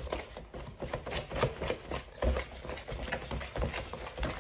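A spoon stirring thick chocolate cake batter in a bowl, with quick, irregular knocks and scrapes against the bowl.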